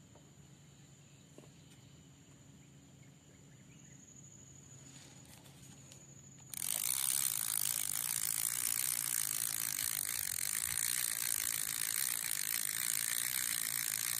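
Spinning fishing reel cranked close to the microphone, a dense whirring rattle of its gears as line is wound in. It starts suddenly about six and a half seconds in and runs on steadily.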